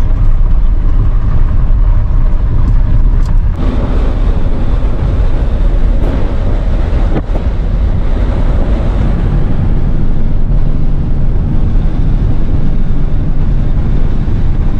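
Engine and road noise inside the cab of an older vehicle driving along, a steady heavy rumble with wind buffeting the microphone. The noise changes character abruptly about three and a half seconds in.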